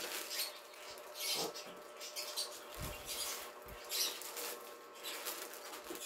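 Clear plastic bag crinkling in repeated bursts as it is handled and pulled off a boxed battery charger, with a couple of dull low thumps about three seconds in.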